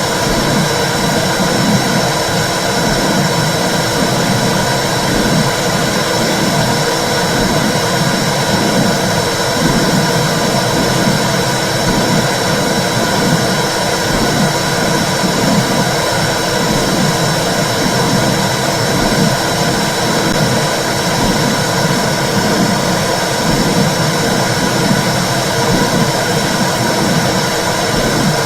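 Womb sound for soothing babies: a loud, steady whooshing rush with a regular low pulsing running through it, and a thin steady high tone.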